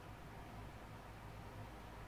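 Faint steady hiss with a low hum underneath: background noise of the recording, with no distinct sound events.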